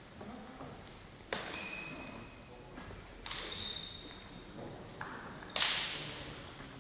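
Badminton rackets striking a shuttlecock in a rally: about four sharp hits, the loudest about five and a half seconds in, each ringing on in the echo of a large sports hall. Short high squeaks of shoes on the court floor come between the hits.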